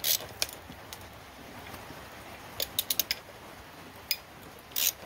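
Hand ratchet with a 5 mm Allen bit clicking as it loosens engine cover bolts. There is a short run of clicks at the start, a few separate clicks around three seconds in, and another short run near the end.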